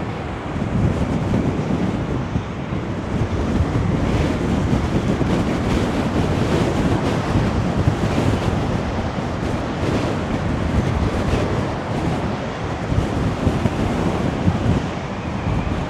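High wind rumbling on the microphone over rough sea waves crashing and surging against a sea wall, a steady noisy roar throughout.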